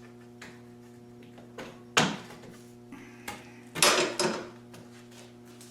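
Wooden knocks and clatter from handling the drilled boards: one sharp knock about two seconds in, then a short run of knocks a couple of seconds later, over a steady low electrical hum.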